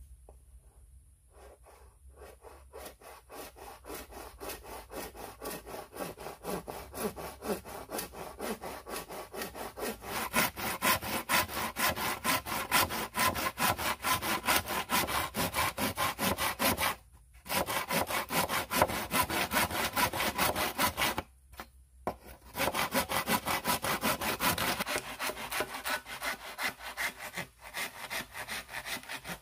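Machete blade sawing back and forth across a green bamboo pole, quick rasping strokes at about four a second. The strokes build up over the first few seconds and break off briefly twice.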